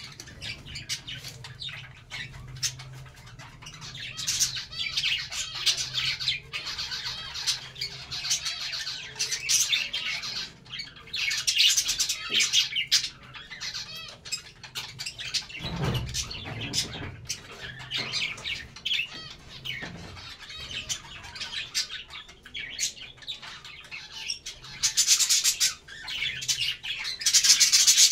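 A small flock of budgerigars chattering, with rapid high chirps, warbles and squawks that come and go in bursts and are loudest near the end.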